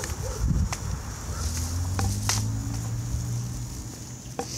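Footsteps and handling noise from walking along pavement, with a few sharp clicks and a low steady hum for a couple of seconds in the middle.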